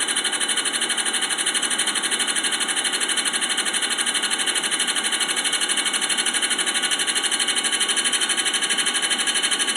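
Drill press running, spinning a file that scrapes across the face of an engine cylinder to flatten it, with a fast, even pulsing rasp.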